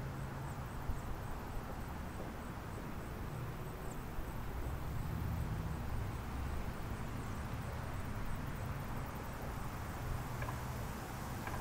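Wind rumbling and buffeting on the camera microphone, steady and low. Over it, a faint high insect chirp repeats about four times a second, with a few faint bird chirps.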